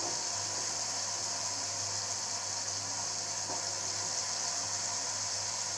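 Steady sizzling hiss of spice paste frying in oil in a pan as pieces of okra are dropped in by hand, over a steady low hum.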